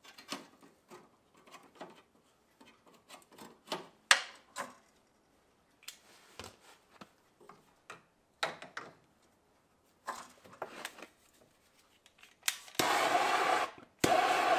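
Small handling clicks and scraping as a knot is cut off a starter rope. About 13 seconds in, a handheld gas torch clicks on and hisses steadily, with one brief break near the end.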